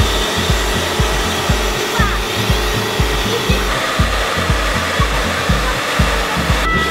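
Background music with a steady beat about twice a second, over the steady hiss of a pressure washer's water jet spraying a pit bike.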